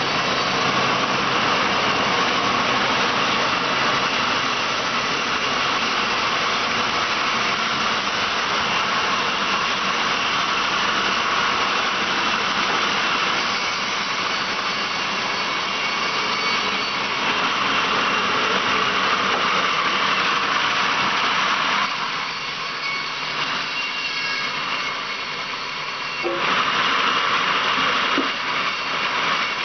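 Large vertical band saw mill running and cutting through logs: a loud, steady noise of the band blade going through the wood. It eases off for a few seconds late on, then comes back up to full level.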